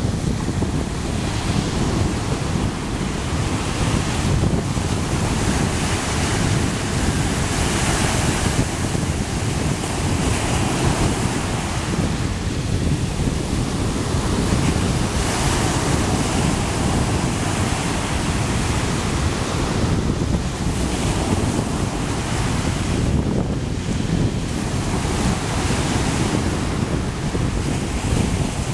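Small surf breaking and washing up a sandy beach, its hiss swelling and fading every few seconds as each wave runs in. A steady low wind rumble on the microphone runs underneath.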